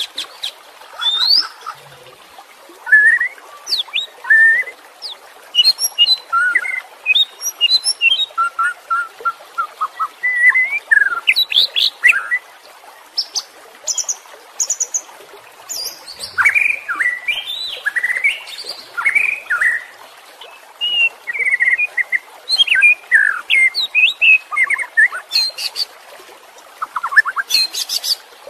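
White-rumped shama (murai batu) singing a long, varied song: loud whistled notes sliding up and down, rapid chattering trills and sharp clicking notes, one short phrase after another with brief gaps. It is the bird's excited, aggressive full song, the kind keepers call 'ngamuk'.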